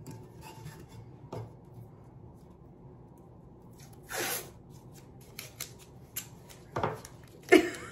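Hands working blue painter's tape on a tumbler: a short rasp of tape being pulled off the roll about four seconds in, among light taps and clicks, with a couple of sharper clicks near the end.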